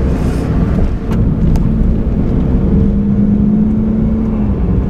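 Car driving, heard from inside the cabin: steady engine drone and road rumble with a held engine tone, and a couple of light ticks about a second in.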